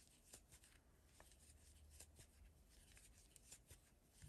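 Faint light clicks and soft rustling of a crochet hook working yarn, close to silence.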